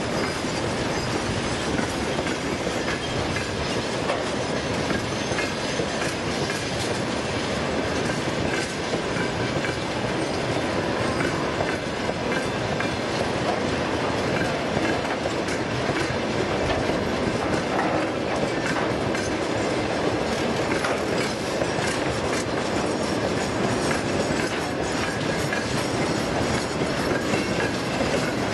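Freight train of tank wagons rolling past close by: a steady rumble with the clickety-clack of wheels passing over rail joints.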